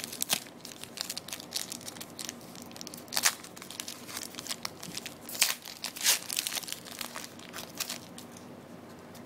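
A foil trading-card pack wrapper being torn open and crinkled, a quick run of sharp crackles that dies away near the end.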